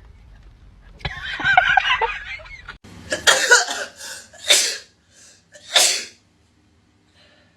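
A person sneezing and coughing in a fit triggered by a nasal swab test: several sharp bursts packed into about three seconds, after a strained, drawn-out vocal sound.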